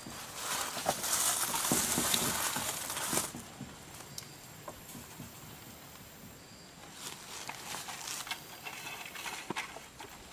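Rustling and scraping with small sharp clicks as trap wire is wrapped and twisted around the bottom rung of a welded-wire hog panel. The rustling is loudest in the first three seconds, dies down, then picks up again near the end along with more clicks.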